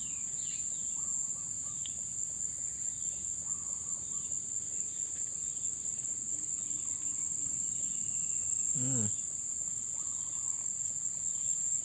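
Insects, likely crickets, chirring in a steady high-pitched drone. About nine seconds in there is a brief low call that falls in pitch.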